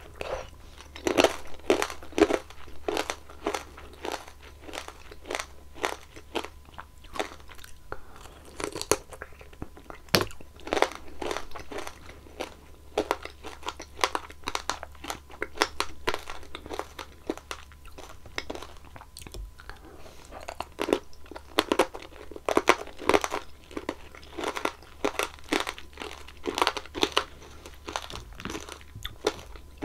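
Close-miked chewing of strawberry tanghulu: the hard candy shell cracking and crunching between the teeth in bursts of crisp crackles, with softer wet chewing in between.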